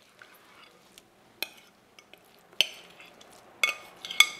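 A spoon scraping filling out of a serving bowl into an aluminium baking pan, with a few sharp ringing clinks of utensil on dish that come closer together near the end.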